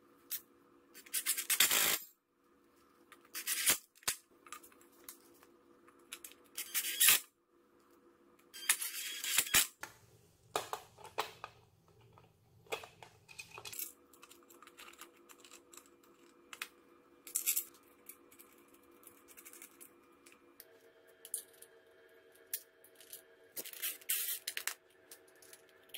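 Small metal parts clinking and rattling in several short bursts: screws, bolts and steel brackets being handled and set against a metal scooter deck.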